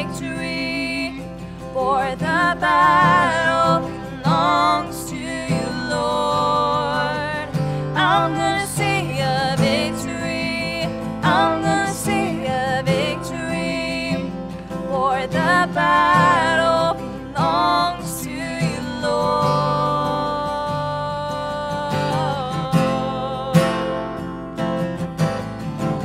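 A man and a woman singing a worship song together over a strummed acoustic guitar. Near the end the voices stop and the guitar strums on alone.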